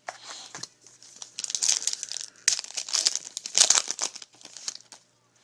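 A trading card pack wrapper being torn open and crumpled by hand, a dense crackling crinkle that is loudest from about a second and a half in until near the end.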